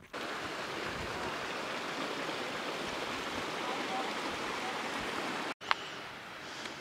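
Steady rushing of a mountain stream of snowmelt water. About five and a half seconds in, the sound cuts out for an instant with a click, and the rushing goes on a little quieter.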